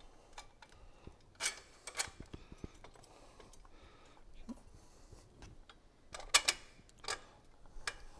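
Scattered sharp clicks and light knocks of metal parts being handled and worked into place: the spacer and the steel side-guard bracket being fitted between the motorcycle's frame bracket and engine. The loudest pair of clicks comes about two-thirds of the way through.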